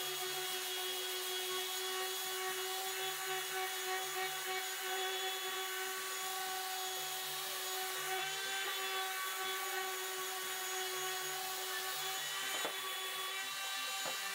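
Random orbital sander running steadily while sanding a hickory hammer handle: a steady motor whine with the rasp of the pad on the wood, and a single brief knock late on.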